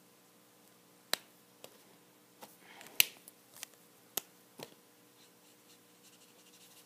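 A handful of sharp plastic clicks as Copic alcohol markers are picked up and set down and a cap is pulled off, the loudest click about three seconds in.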